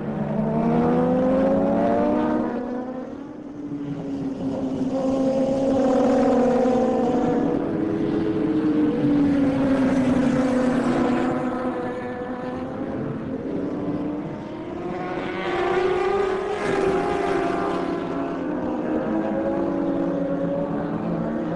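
Racing superbike engines revving hard as a pack of motorcycles laps the circuit, their pitch sliding up and down as they brake and accelerate through the corners. The sound swells several times, loudest around the middle and again late on.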